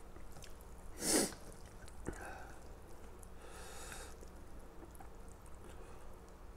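A short, sharp breath through the nose about a second in, then a faint tap of chopsticks on the dish and a softer breath around four seconds in. Otherwise quiet.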